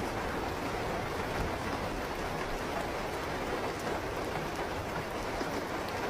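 Steady heavy rain falling on a surface, an even hiss with a low rumble underneath.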